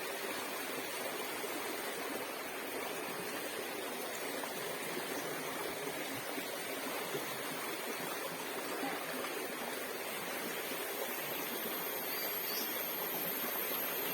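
Steady rush of flowing water, like a stream or river current, unbroken throughout.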